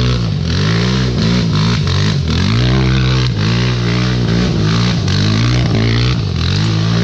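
Quad bike (ATV) engine revving up and down over and over as it spins donuts on a dirt track, its pitch rising and dipping every second or so.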